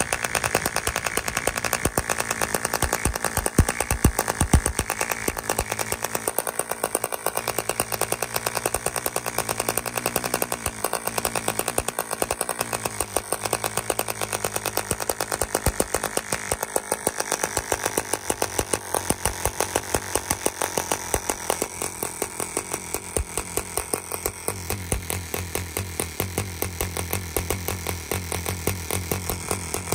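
Gordon Burford G.B. 5 5 c.c. model diesel engine running at speed on a test stand and driving a 12 x 4 nylon propeller, a rapid, even firing buzz.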